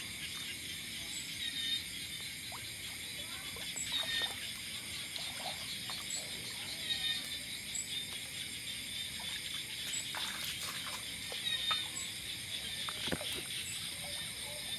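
Night chorus of insects: steady high-pitched buzzing with a short chirp repeating about once a second and fluttering calls every few seconds. Now and then water sloshes and brush rustles as people wade and walk through it.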